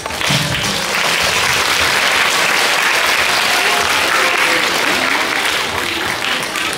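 Audience applauding: steady, dense clapping that tapers off slightly near the end.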